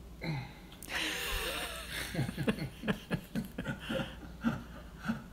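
A short hissy rattle as a sesame seed container is twisted by hand, followed by a person chuckling in short repeated bursts.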